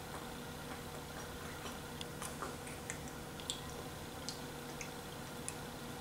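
Faint, irregularly spaced small clicks and mouth sounds from a baby being spoon-fed with a plastic spoon, over a steady low room hum.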